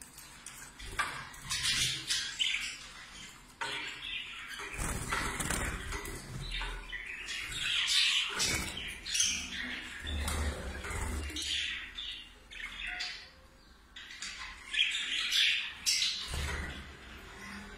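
Caged budgerigars chattering and squawking in irregular bursts of high warbling calls.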